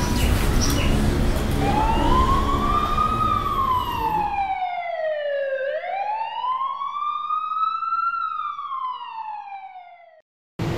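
Wailing siren, its pitch rising and falling slowly in two long sweeps of about four seconds each, fading out near the end. For its first few seconds it sounds over background noise that cuts off abruptly partway through.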